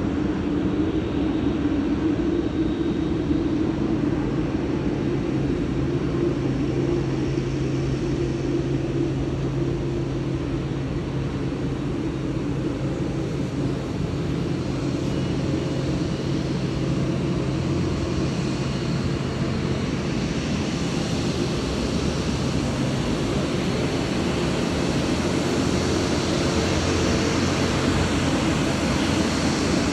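Air India Boeing 787's jet engines at taxi idle, a steady rumble and hum, with a rising hiss as the jet draws closer from about twenty seconds in.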